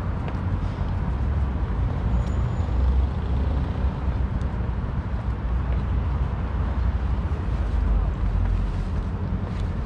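Road traffic: cars and heavier vehicles going by, a steady low rumble that swells about three seconds in and again near the eighth second.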